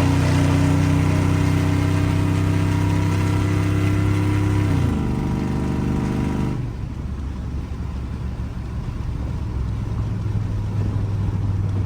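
Chevrolet Silverado SS 6.0-litre V8 with long-tube headers running at a steady engine speed, then the revs fall off about five seconds in. A lower, rougher running note follows.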